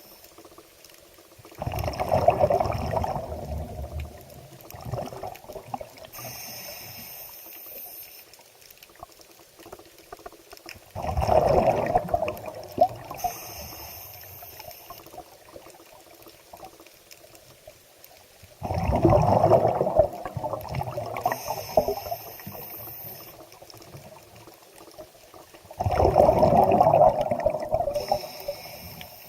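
Water sloshing and splashing in four loud surges, roughly every seven to nine seconds, each fading away over a few seconds into a quieter trickling.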